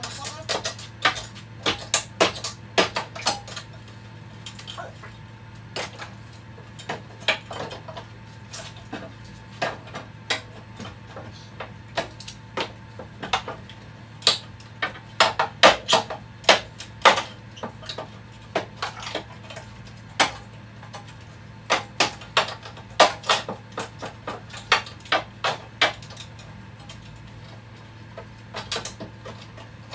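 Irregular metallic clanks and clicks, often in quick clusters, of hand tools prying and tapping at a rusted, spot-welded sheet-metal panel in a Porsche 911 SC's front compartment. A low steady hum runs underneath.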